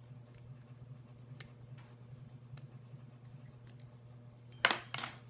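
Lock picks working in the keyway of a double-sided wafer padlock: faint scattered metallic ticks and scrapes, then a short, louder clatter of metal clicks near the end.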